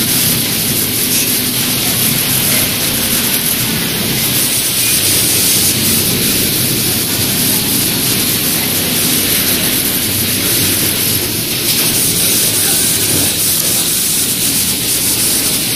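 Steady, loud machine noise of a sewing factory floor, with a CNC pattern sewing machine stitching through its programmed pattern on a template.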